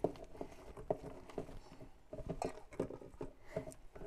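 Hands squishing and kneading a soft raw stuffing of ground pork, cream cheese and shredded cheddar in a bowl: an irregular run of short, soft squelches and slaps.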